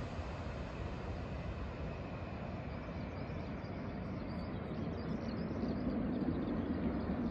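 Jet engine rumble from a four-engine KC-135 tanker landing, steady, then swelling a little louder in the last couple of seconds.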